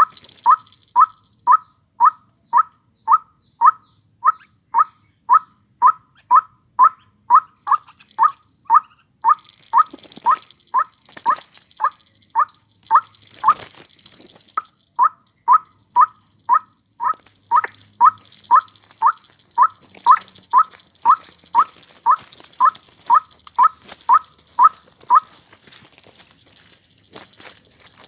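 White-breasted waterhen (ruak-ruak) giving a long, monotonous series of short, evenly repeated call notes, about two to three a second. The series pauses briefly about halfway through and stops a few seconds before the end, over steady high insect buzzing.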